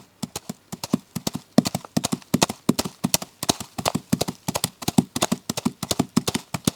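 Foley horse hoofbeats performed by hand: a quick, steady galloping clip-clop of sharp knocks, several a second.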